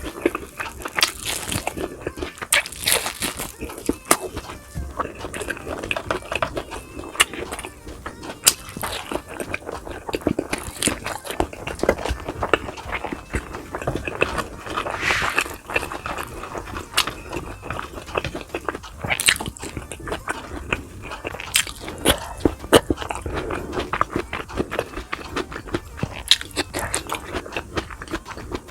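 A person eating close to the microphone: chewing and crunching bites of fried boneless milkfish and rice, with frequent wet mouth smacks and clicks in an irregular rhythm.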